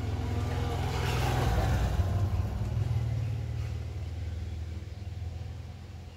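A motor vehicle's engine running, growing louder between about one and three seconds in and then fading.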